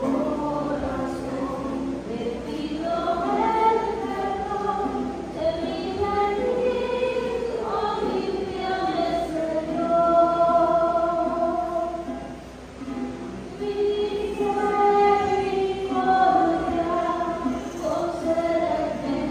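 Church choir singing a communion hymn in slow phrases of long held notes, with a short break between phrases about twelve seconds in.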